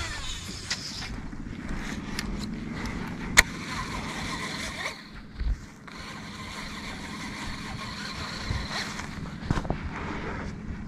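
Fishing reel being cranked to retrieve a topwater frog lure, a steady whirring in two stretches with a short break about five seconds in, and a single sharp click about three seconds in.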